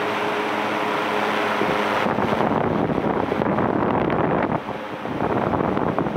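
Electric pedestal fan running. Its steady rush of air turns gusty and buffets the microphone from about two seconds in, over a faint steady hum at the start.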